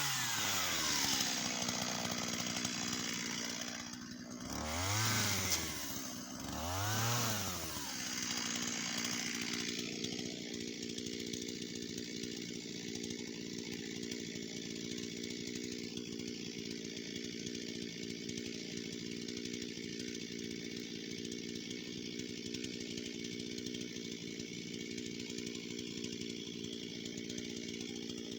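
Shindaiwa 488 two-stroke chainsaw coming off full throttle and falling to idle. It is revved up and down twice, about five and seven seconds in, then idles steadily.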